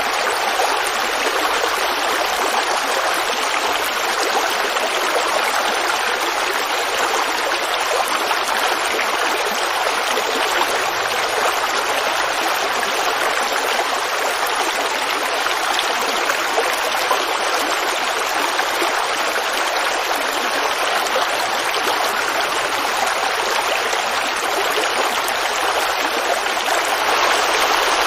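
Woodland creek babbling steadily over rocks, an even rushing of flowing water.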